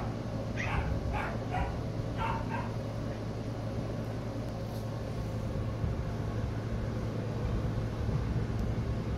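Toy poodle puppy giving about five short, high yips in quick succession during play in the first three seconds, over a steady low hum.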